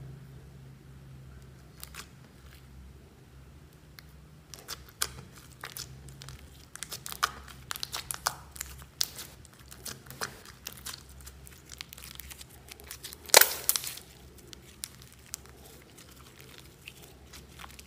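Hands squeezing and folding a soft slime, giving a run of short clicks and pops. They come sparsely at first, crowd together through the middle, and the loudest pop falls about three-quarters of the way through.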